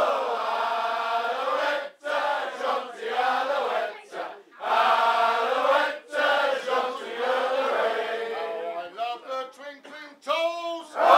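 A group of men singing a chant-like song together, in phrases broken by short pauses; near the end it breaks into shorter, choppy calls.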